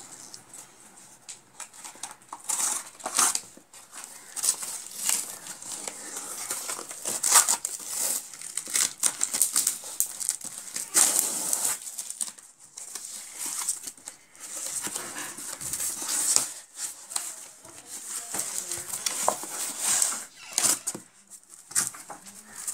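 Cardboard shipping box being opened by hand: irregular crinkling, scraping and tearing of cardboard and packaging in short spells.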